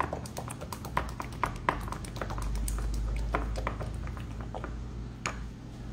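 A small spatula stirring a thick condensed-milk and passion-fruit filling in a glass bowl, with irregular light taps and scrapes of the utensil against the glass. A low rumble swells and fades in the middle.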